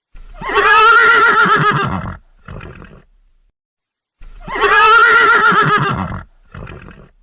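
A pony whinnying twice, the same call repeated: each a loud whinny of about two seconds with a wavering pitch, followed by a short, fainter sound.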